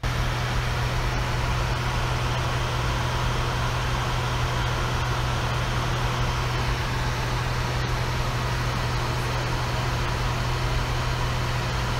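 Airliner cockpit noise at cruise altitude: an even rush of air with a steady low hum underneath.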